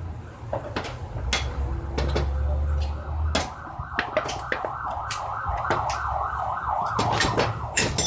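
Sharp metal clinks and knocks from handling a tin can, its lid and steel brake shoes on a metal workbench. From about halfway through, a wavering siren-like tone rises and falls a few times a second behind the clinks.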